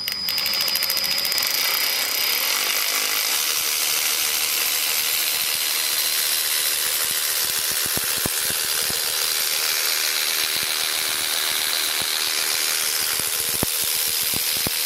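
Hercules 12V cordless ratchet running free at full speed, spinning a 14 mm impact swivel socket with no load: a steady whine from the motor and gears, with a couple of faint clicks.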